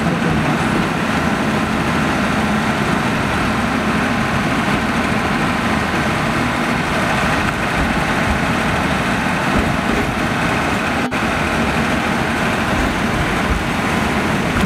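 Steady running noise of the Akasawa Forest Railway's narrow-gauge train, heard from aboard: the small diesel locomotive's engine and the wheels on the rails.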